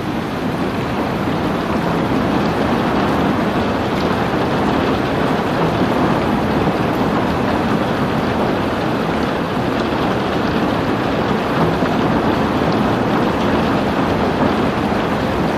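Heavy rain falling steadily, a dense, even rush of drops with no let-up.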